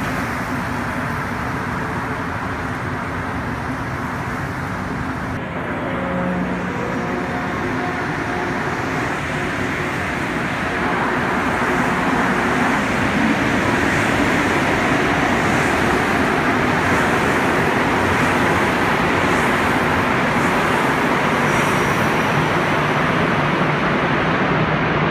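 Montreal Metro rubber-tyred train running along a station platform: a steady rushing rumble of the running gear that grows louder about eleven seconds in and stays loud.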